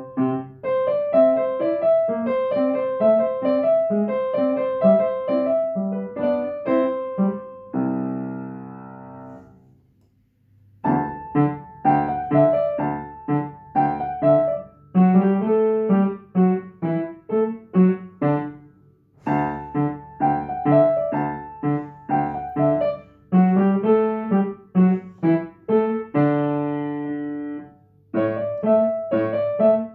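Upright acoustic piano played solo from sheet music, in phrases of quick, separate notes. About eight seconds in, a held chord rings and fades almost to silence before the playing starts again; a second held chord comes near the end.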